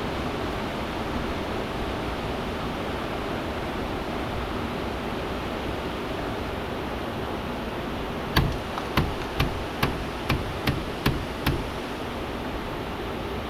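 Steady rush of river water, with a run of eight sharp knocks, a little over two a second, in the second half.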